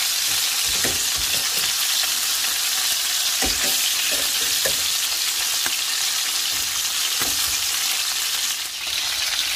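Flour-coated bone-in chicken pieces shallow-frying in hot oil in a stainless steel pan: a steady, bright sizzle. A few short clinks and knocks of metal tongs against the pan come through as the pieces are flipped.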